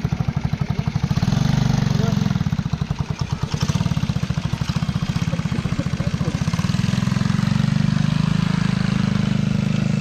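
An engine running steadily with a fast, even pulsing.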